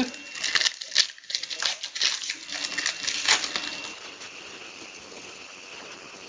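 Trading cards and pack wrappers being handled, with a quick run of crinkles and clicks for about four seconds that then dies down to faint background hiss.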